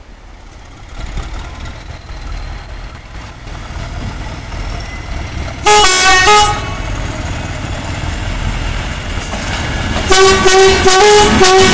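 Northern Ireland Railways 450 class diesel-electric multiple unit approaching, its running rumble building steadily as it nears. Its horn sounds a two-note blast about six seconds in and a run of short blasts near the end.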